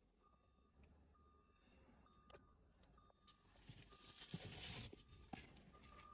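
Faint dashboard warning chime of a 2023 Nissan Patrol, short single-tone beeps repeating about once a second while the cluster shows a warning. A brief rush of noise and a few light clicks come about four to five seconds in.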